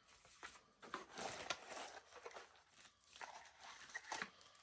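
Faint rustling and crinkling of blind-box packaging being handled, with a few small clicks and taps.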